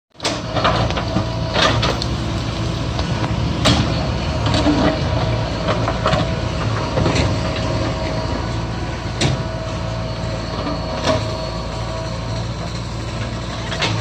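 JCB 3DX backhoe loader's diesel engine running steadily under load while the rear backhoe digs, with scattered sharp knocks and clanks as the bucket strikes earth and stones.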